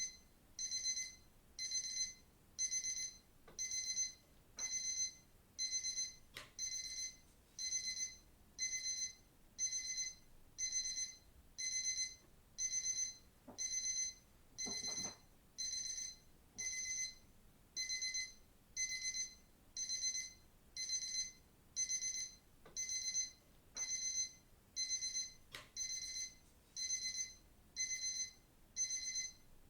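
Digital watch alarm beeping: short bursts of high-pitched beeps repeating evenly about once a second.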